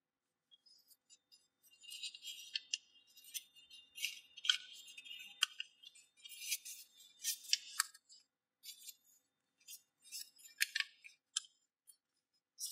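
A sheet of A4 paper being folded and creased by hand: irregular crinkling and rustling with sharp crackles as the folds are pressed flat.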